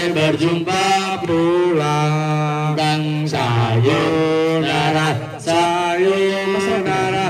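A young man singing into a handheld microphone, holding long, steady notes with short breaks between phrases.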